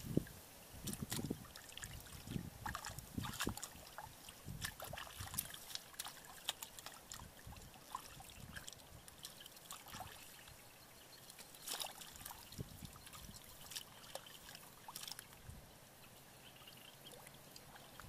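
Faint, irregular splashing and trickling of hands groping through shallow muddy paddy water to catch fish, with scattered short clicks.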